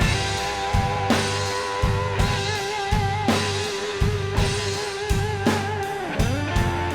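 Rock music with electric guitar and drum kit: a steady beat under a long held guitar note with vibrato that bends down near the end.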